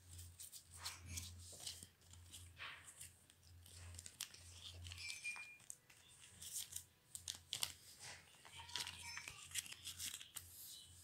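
Football trading cards being handled over a card binder: crinkling of the plastic sleeve pages and short clicks and rustles as cards are slid and shuffled.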